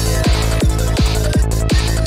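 Fast electronic dance music from a live synthesizer set. A punchy kick drum lands about three times a second, with a pulsing bassline between the kicks and bright high synth and noise washes over the top.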